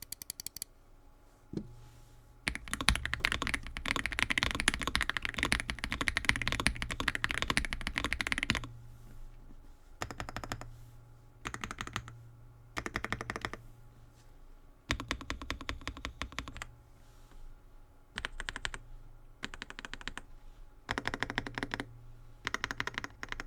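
Typing on an Aula F75 Pro, a gasket-mounted mechanical keyboard with pre-lubed stock switches. A fast, continuous run of keystrokes comes first, then several shorter bursts of typing with pauses between them.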